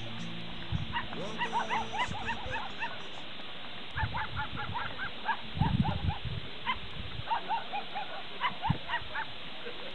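An animal yelping in quick bouts of short, arched calls, several a second, with pauses between bouts. A low steady hum fades out in the first few seconds, and a short low rumble comes about halfway through.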